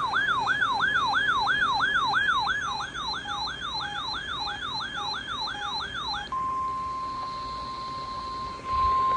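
An electronic alert siren warbling up and down about three times a second. About six seconds in it gives way to the steady 1050 Hz warning alarm tone of a NOAA Weather Radio weekly test.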